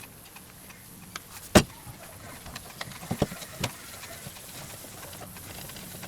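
Handling noises from a pair of plastic sunglasses being picked up and turned over: one sharp click about a second and a half in, then a few softer clicks and taps.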